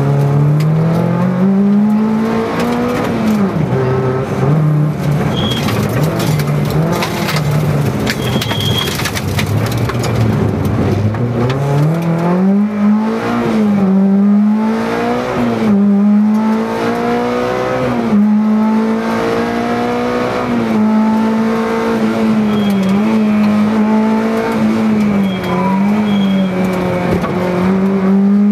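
Peugeot 309 rally car's engine heard from inside the cockpit at full stage pace, revving up and dropping back at each gear change. Lots of rattling and knocking through the first ten seconds or so.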